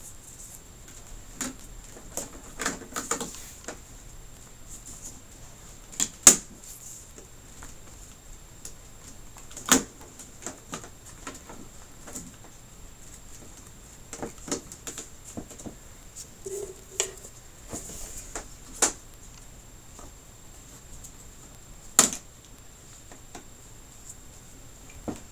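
Plastic clips and frame parts of an LG 55UJ6200 LCD TV clicking and rattling as they are handled and worked loose along the panel's bottom edge. Scattered small clicks are broken by a few sharper snaps, the loudest about six seconds in and again near ten and twenty-two seconds.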